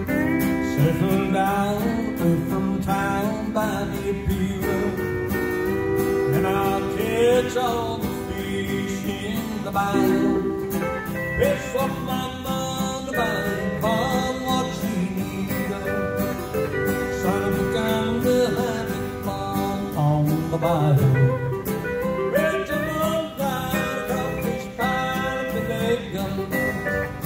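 Live country music on an Excel pedal steel guitar and an acoustic guitar, the steel gliding between notes.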